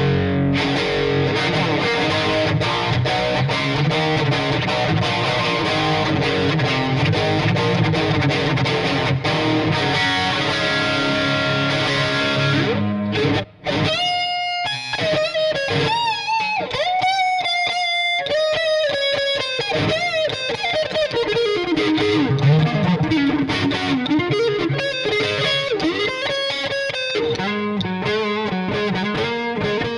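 Chinese-made Lavish CMRL electric guitar played with a distorted tone: thick rhythm chords for about the first twelve seconds, a brief break, then a single-note lead with string bends and vibrato.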